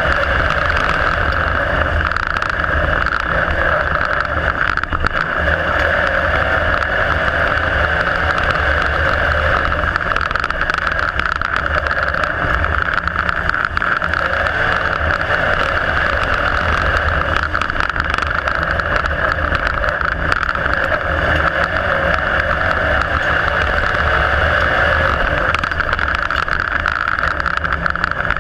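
IMCA Modified dirt-track race car's V8 engine running hard at racing speed. It is heard from inside the cockpit as a loud, steady drone with no let-up.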